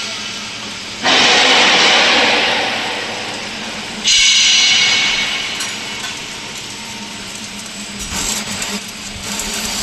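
Power-tool machinery in a metal workshop: two loud bursts of harsh noise about three seconds apart, each starting suddenly and fading over about two seconds, over a steady machine hum, with shorter bursts near the end.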